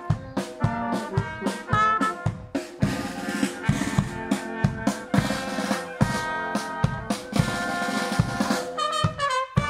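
Amateur wind band (trumpets, flugelhorn, flutes and clarinets) playing an upbeat tune over a steady drum beat.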